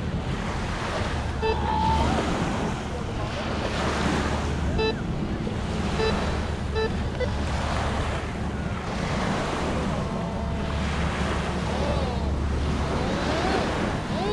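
Surf washing in and wind buffeting the microphone, with several short electronic beeps from a metal detector checking a target.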